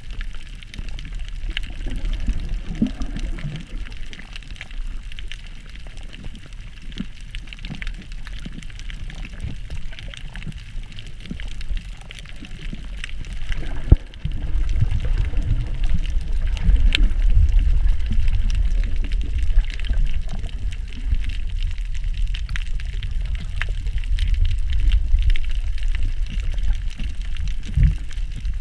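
Muffled underwater sound picked up through a camera's waterproof housing: water sloshing and bubbling as a low rumble, louder about halfway through, with scattered faint clicks.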